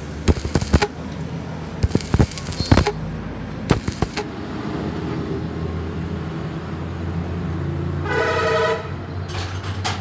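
Stick welding on a truck's steel rear axle housing: short, sharp arc crackles in the first four seconds over a steady low hum. About eight seconds in, a vehicle horn toots once, for under a second.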